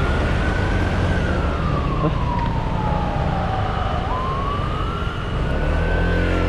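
Siren wailing in slow cycles of about four seconds: each one jumps up in pitch, climbs a little, then slides slowly down. A motorcycle's engine and wind rumble run underneath.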